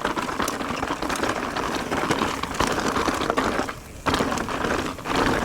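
Mountain bike rolling fast over a rocky trail: tyres crunching and clattering over rock, with the rattle of the bike, and a brief lull about four seconds in.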